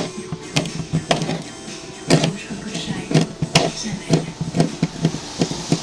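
Abnormal noise from the accessory drive belt of a Mitsubishi Colt Plus engine that is running: sharp ticks repeating about twice a second, slightly uneven, over a low steady hum.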